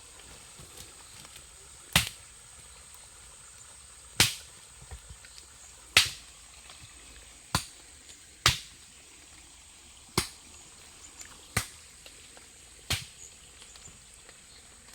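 A lighter being struck over and over to light a fire: about eight sharp clicks, one every second and a half to two seconds, over a faint steady hiss.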